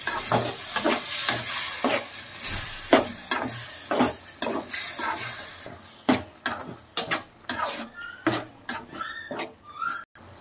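A metal slotted spatula stirring and scraping an onion-tomato masala in a pan, the masala sizzling hard after a little water has gone into the hot oil. About six seconds in the sizzle dies down, leaving separate scraping strokes about twice a second.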